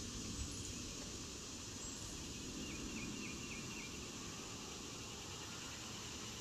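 Faint, steady outdoor background noise, with a short run of faint, high chirps about three seconds in.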